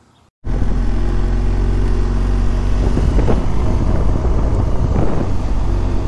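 Motorcycle engine running at road speed while riding, with wind rushing over the microphone. It cuts in abruptly about half a second in and then holds steady.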